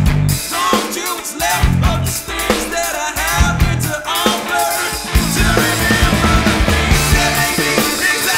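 Rock music with a drum kit playing a steady beat.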